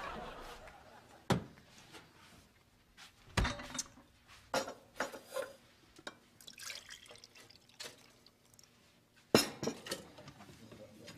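Kitchen clatter of breakfast being laid out: glasses, plates and cutlery clinking and knocked down on a wooden table, with a little liquid poured. It comes as scattered sharp knocks, the loudest about nine seconds in.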